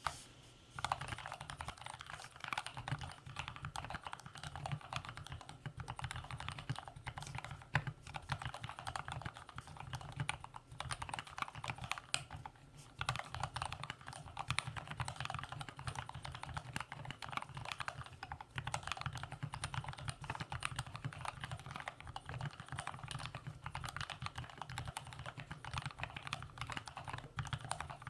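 Continuous fast typing on a custom mechanical keyboard with lubed Gateron Yellow linear switches on an aluminium plate, under Old Cherry-profile keycaps: a dense patter of key clicks. It starts about a second in and pauses briefly about halfway through.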